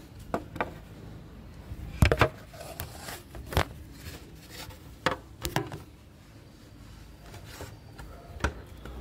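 Plastic side panel of a Bajaj Pulsar 150 being handled and pressed into place over its new rubber grommets: scattered clicks and knocks of plastic, the loudest a short cluster about two seconds in.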